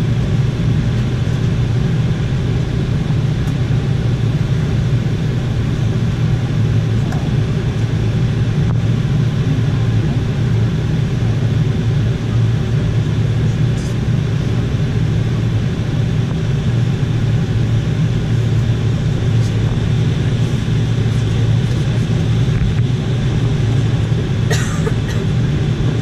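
Cabin noise of an Embraer E190 taxiing: a steady low rumble from its GE CF34-10E turbofans at taxi power. A brief higher-pitched sound cuts in near the end.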